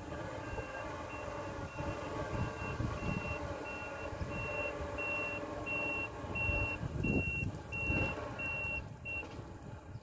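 A vehicle's reversing alarm beeps about twice a second over a running engine and stops shortly before the end. The engine swells twice late on.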